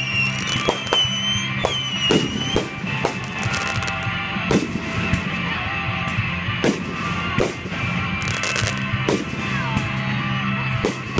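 Fireworks going off, with sharp bangs and pops about once a second, over music playing.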